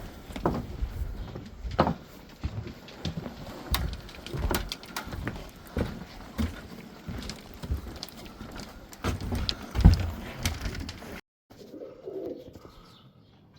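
Pigeons cooing, over a run of irregular knocks and crunches about one or two a second that stop suddenly near the end; after that it is quieter, with a low coo.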